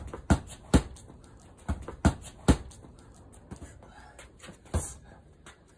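Boxing-gloved punches landing on an Everlast heavy bag: about eight sharp thuds at uneven spacing, several in quick pairs like combinations.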